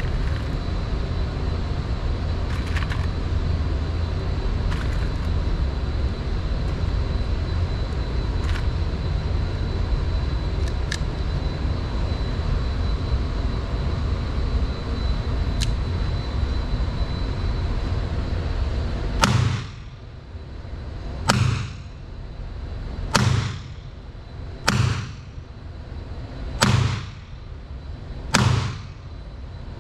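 Steady low rumble with a few faint clicks while a Diamondback Sidekick .22 LR revolver is loaded. About two-thirds of the way in, the revolver fires six .22 LR shots about 1.7 s apart, each with a short echo.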